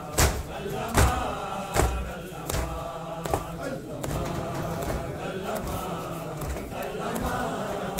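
A crowd of men chants a noha in unison, with loud rhythmic chest-beating (matam) slaps landing about every 0.8 s. The slaps die away about halfway through, leaving the chanting.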